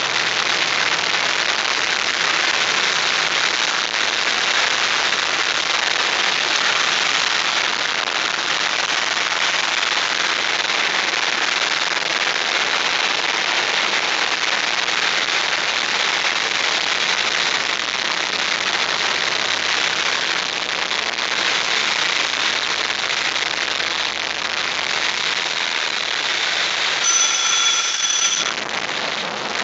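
Steady rushing wind and engine noise inside a single-engine propeller plane's cockpit during the landing approach and touchdown on grass. Near the end a high electronic warning beep sounds for about a second, stops, and starts again.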